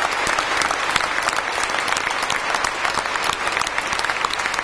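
Audience applauding: many people clapping, dense and steady.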